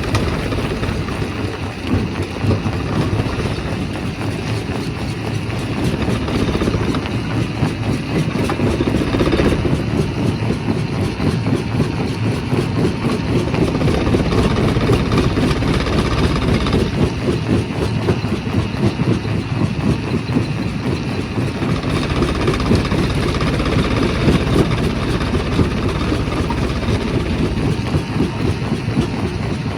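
Primary rock crusher running under load, crushing stone: a steady heavy rumble with continuous irregular knocking and clatter.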